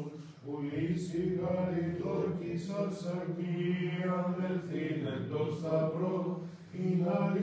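Byzantine chant: male voices sing a melodic line over a steady held drone note (ison), breaking off briefly near the start and again near the end.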